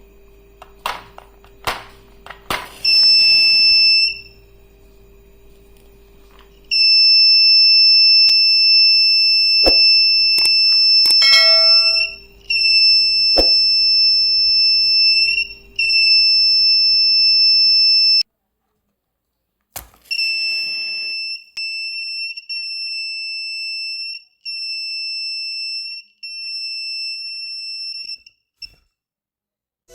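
5 V buzzer of a BC547-and-photodiode fire alarm circuit sounding a steady high-pitched beep, switching on and off in stretches of one to several seconds: the alarm triggering as its photodiode senses light. A few sharp clicks come before the first beep.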